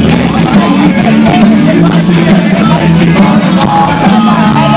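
Loud live band music with a singer and a steady bass line, heard from inside the crowd, with crowd voices mixed in.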